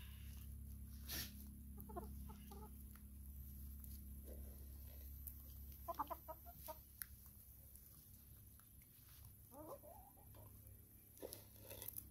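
Hens clucking quietly in a few short bursts, about 2, 6 and 10 seconds in.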